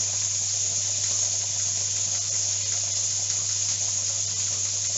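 Diced pancetta sizzling in a hot pan: a steady hiss over a low, steady hum.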